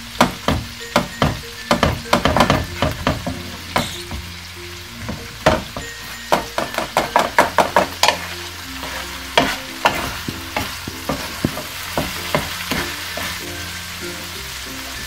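Wooden spatula stirring and tapping against a granite-coated wok while flaked salmon and green peas fry with a light sizzle. The taps come in quick runs and thin out near the end.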